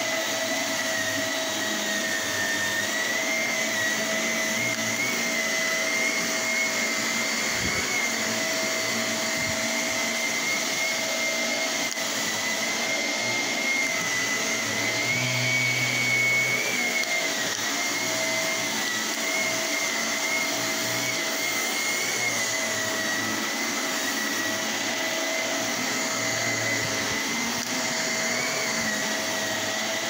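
Upright vacuum cleaner running steadily while vacuuming carpet, its motor whine wavering slightly in pitch.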